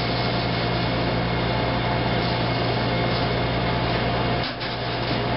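Steady mechanical hum with a constant hiss, with a brief dip about four and a half seconds in.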